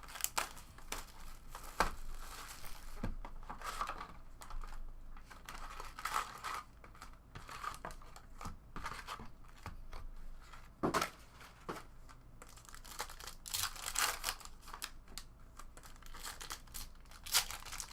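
Plastic wrapping on sealed boxes and packs of trading cards being torn open and crinkled, in irregular rustles with a few sharp clicks.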